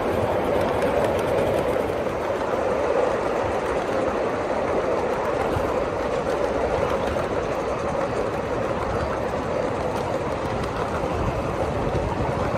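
Ride-on miniature railway train rolling along the track, heard from aboard: a steady rumble of steel wheels on rail with a steady hum.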